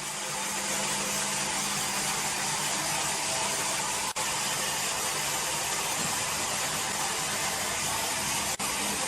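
Sawmill machinery running steadily: a motor hum under an even hiss, cutting out for an instant twice.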